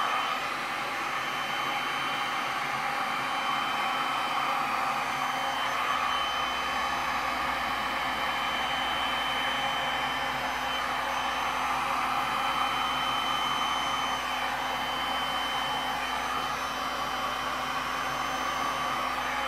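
Handheld heat gun running steadily, its fan blowing hot air over wet epoxy resin to pop surface air bubbles, with a thin high whine over the rush of air.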